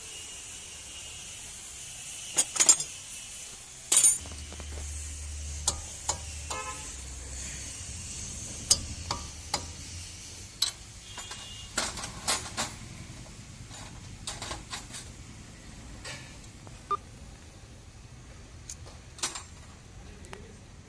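Spanner and hand tools clinking and knocking on the metal of a Maruti Celerio's front brake caliper and hub while the caliper is being unbolted to get at the worn front wheel bearing. The clinks come singly and scattered, the loudest about two and a half to four seconds in.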